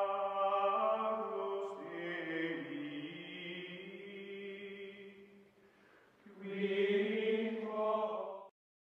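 Outro music of long held, chant-like vocal notes sounding together in chords. It fades out, a second phrase starts about six seconds in, and the music cuts off suddenly near the end.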